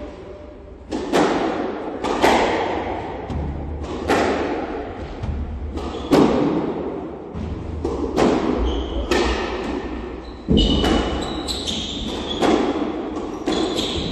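A squash rally: the ball is struck by racquets and smacks off the court walls about once a second, each hit ringing on in the enclosed court. Short high squeaks from players' shoes on the wooden floor come in the second half.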